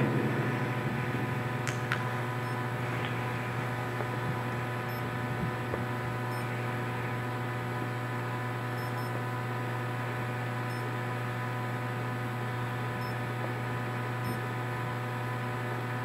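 Steady electrical hum of the tunnel's fluorescent lights: an unchanging buzz with a stack of overtones.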